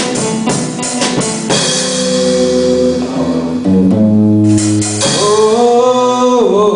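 Live band playing a Hindi film song between sung lines: drum strokes with the chords for about a second and a half, then long held chords whose notes slide to a new pitch twice near the end.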